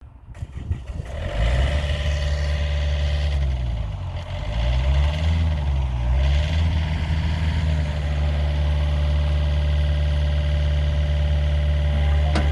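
Diesel engine of a John Deere 50G mini excavator running, its pitch dipping and recovering a few times in the first several seconds before settling to a steady hum. A couple of short clicks come near the end.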